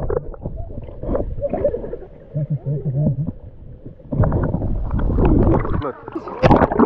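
Muffled underwater gurgling and sloshing as water moves around a submerged action camera, with a sharp splash near the end.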